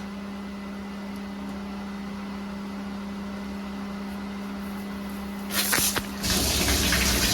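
Water hissing and spraying out of the well plumbing's open fitting as the old pressure switch comes off, driven by pressure left in the line that the gauge failed to show. The spray starts suddenly about five and a half seconds in, after a steady low hum.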